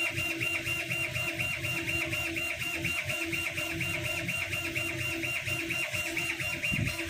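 The laser head of a 1610 CO2 laser cutting machine shuttles back and forth while engraving, driven by its stepper motors. It makes a rapid, evenly repeating whine over a low rumble.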